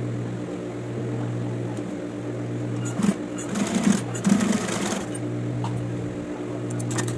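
Industrial sewing machine with its motor humming steadily, breaking into a burst of fast stitching for about two seconds in the middle, then stopping. A few sharp clicks come near the end.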